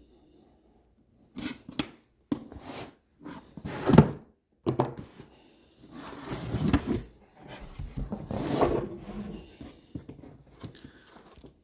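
A box being opened and its packaging handled: an irregular run of scrapes, rustles and knocks. The loudest is a sharp knock about four seconds in, and there are longer stretches of rustling a little later.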